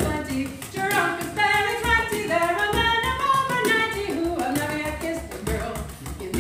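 Irish folk band playing live: a woman sings the melody over a bodhrán beat and strummed guitars and banjo.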